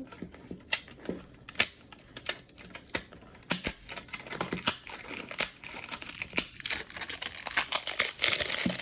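Packaging being handled and opened: scattered clicks and taps, turning into steady crinkling near the end.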